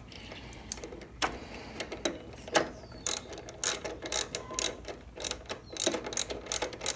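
Socket ratchet clicking in short irregular runs as its handle is swung back and forth, tightening a nut on a starter solenoid terminal.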